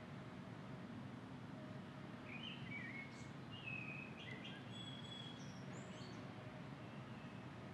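Birds chirping in short calls and brief whistles from about two seconds in, over a faint, steady outdoor background hum.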